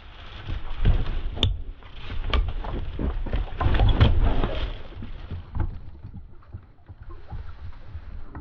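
Paddling a small homemade corrugated-plastic boat: water splashing and sloshing with irregular knocks and thumps, and a sharp click about a second and a half in.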